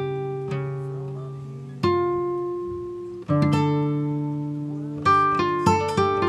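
Background music on acoustic guitar: plucked chords left to ring out and fade, then quicker picked notes near the end.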